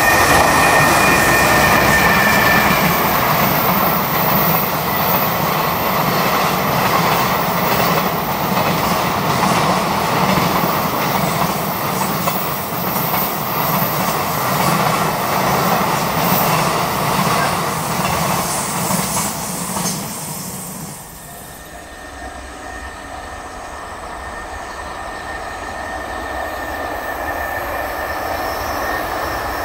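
Container freight train hauled by a JR Freight EH500 electric locomotive passing close by: the steady running noise of its wagons' wheels on the rails. About 21 seconds in it drops off abruptly to a quieter running noise that slowly grows as the next EH500 freight train approaches.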